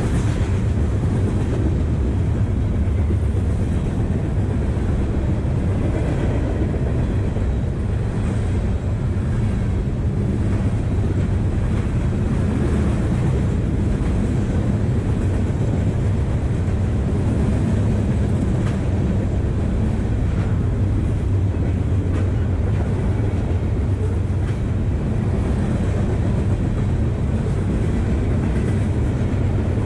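Loaded garbage container cars of a freight train rolling past close by: steady, mostly low-pitched noise of steel wheels on the rails.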